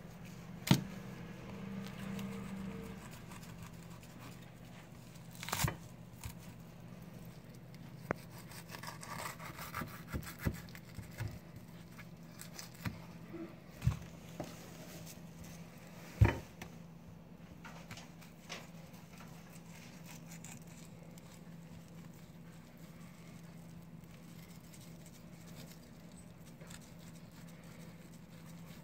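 Knife cutting and prying apart a bluefin tuna collar on a cutting board: scraping, slicing and tearing of flesh and bone, with a few sharp knocks on the board. A steady low hum runs underneath.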